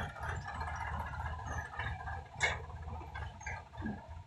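Sonalika tractor's diesel engine running with a low, even throb as it pulls away after tipping a trailer load of soil. A sharp click sounds a little past halfway.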